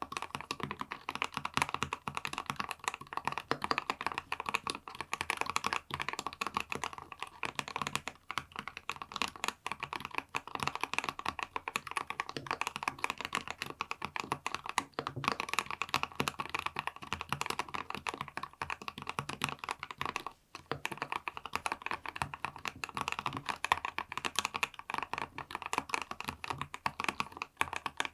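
Continuous typing on a Monsgeek M3W mechanical keyboard with Ice Cream Pink linear switches, a PC plate, full foam, and force-break and tape mods; rapid, dense keystrokes with a brief pause about twenty seconds in.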